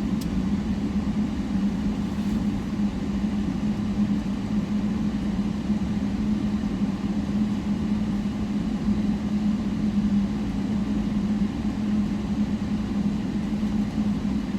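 Vehicle engine running steadily, a constant low hum with rumble, heard from inside the vehicle.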